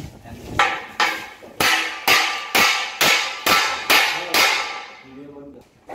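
Hammer blows on metal during the fitting of a small monkey crane: about nine evenly paced strikes, roughly two a second, each ringing briefly.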